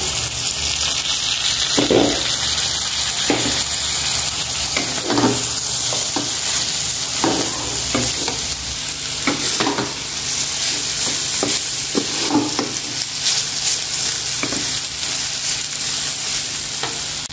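Yellow noodles with beef and scrambled egg sizzling and frying in a hot wok, with a wooden spatula stirring and scraping through them in short irregular strokes.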